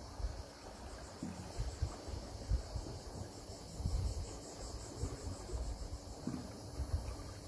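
Insects chirring steadily in a fast, high pulsing drone, with irregular low rumbles of wind on the microphone.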